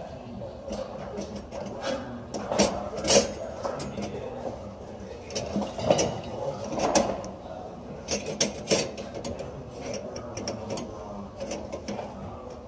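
Irregular clinks, clicks and knocks of small hard objects, like metal parts or tools being handled, with a few louder knocks about three seconds in, around six to seven seconds and near nine seconds.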